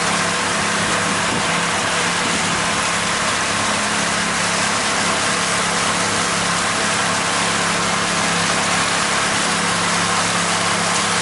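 Pontoon boat under way: its motor running steadily with a constant low hum, under an even rush of wind and water.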